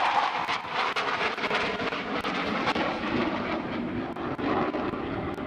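Jet noise from a Panavia Tornado's twin RB199 turbofans during a display pass, steady and loud, sinking lower in pitch as the jet banks away.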